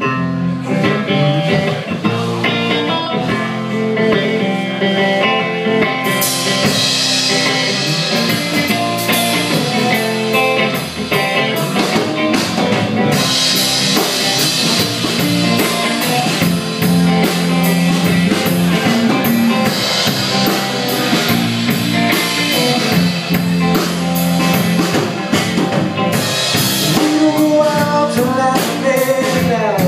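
Rock band playing: guitar over a drum kit, the music getting fuller and busier with high cymbal-like wash about six seconds in.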